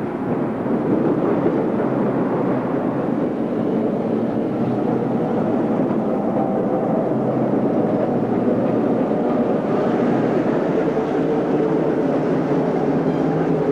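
Chicago, Aurora and Elgin third-rail electric interurban car running steadily along the track, a continuous even running noise with no breaks.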